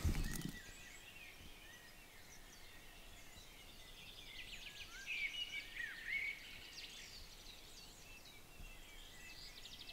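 Faint songbirds chirping and warbling over a quiet outdoor hiss, most active in the middle. A brief bump of camera handling comes right at the start.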